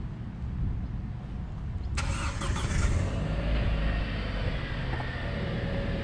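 A motor vehicle's engine running nearby as a low rumble, joined suddenly about two seconds in by a louder, hissing sound with a steady whine that keeps going.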